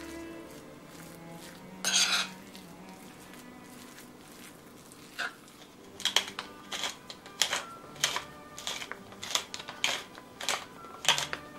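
A metal spoon scraping once loudly against a bowl of minced-meat filling about two seconds in. From the middle on come short, sharp clicks and rasps of utensils on the bowl, about two a second, over soft background music.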